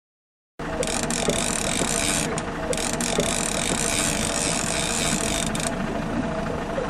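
Fishing reel being cranked steadily, its gears and ratchet clicking, as a fish is reeled up from deep water. It starts suddenly after a moment of dead silence.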